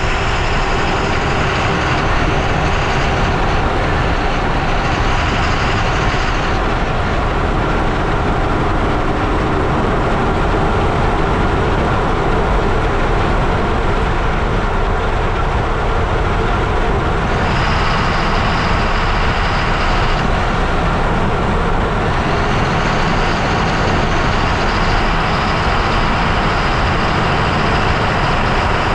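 A lorry driving on the road, heard from a camera under its chassis by the front wheel: a loud, steady rumble of tyres, engine and rushing air. A higher hiss fades in and out a few times.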